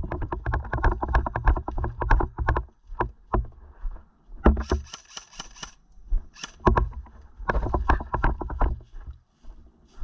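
Airsoft gun firing in three rapid bursts of sharp clicks, with a few single shots in between. The longest burst lasts about two and a half seconds.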